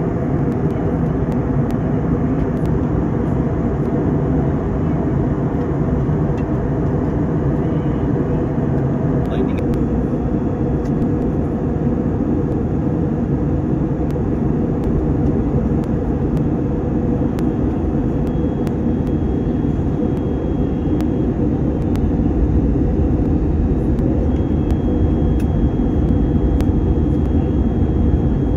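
Steady low drone of an airliner cabin in flight: engine and airflow noise. It grows a little louder and deeper about three-quarters of the way through.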